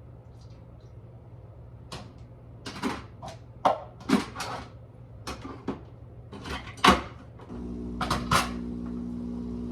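Kitchen cupboard doors and items being opened, set down and knocked about in a quick run of clicks and knocks. About three-quarters of the way in, a steady electric hum from a kitchen appliance starts up.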